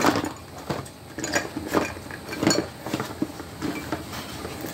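A small electric nail drill and its parts handled and fitted back into their box: a string of irregular sharp clicks, taps and knocks.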